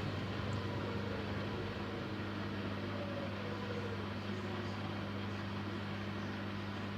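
Siemens Siwamat iQ 716 washing machine running with a steady low hum and a rushing noise over it, with faint gliding whines now and then.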